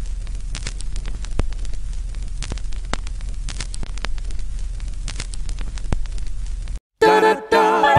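Steady hiss over a low hum, scattered with sharp crackles and pops, as in old-record surface noise. It cuts off abruptly near the end, and a cappella group singing starts right after.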